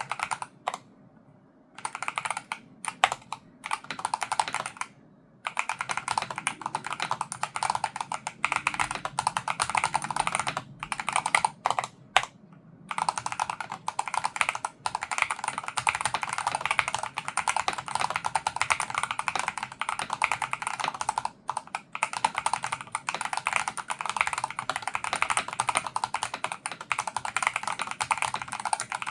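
Fast, continuous typing on a Logitech G Pro X TKL Rapid keyboard with linear hall-effect magnetic switches: a dense run of key clacks, broken by short pauses about a second in, around five seconds in and near the middle.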